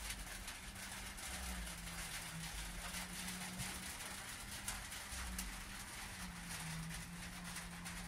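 A chainsaw engine running at a steady high speed, an even hum that holds its pitch and sags slightly about six seconds in. Over a steady hiss there is a light, irregular patter of raindrops on the roof.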